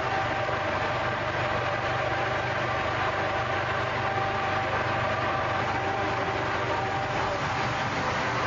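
A motor vehicle's engine running steadily at one speed, idling, with a steady whine on top.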